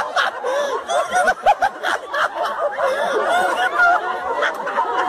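A crowd laughing, many voices overlapping at once.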